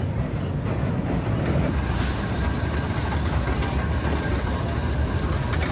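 Steady low mechanical rumble of carnival rides running, under a general wash of midway noise.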